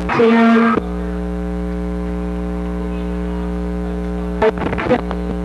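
Steady electrical mains hum with a stack of even overtones. A brief loud tone cuts in about a quarter of a second in and stops before the first second ends. A few short knocks or clatters come near the end.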